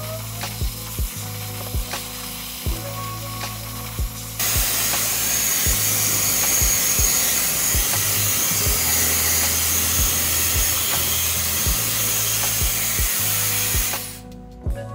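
TiDdi HDI880i hair dryer blowing on its strongest setting: a steady rush of air with a high whine, which gets much louder about four seconds in and cuts off about a second before the end. Background music with a steady beat plays throughout.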